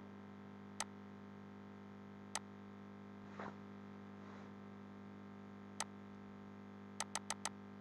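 Computer mouse clicking: single clicks about a second in, around two and a half seconds and near six seconds, then a quick run of four clicks near the end. A faint steady electrical hum underneath.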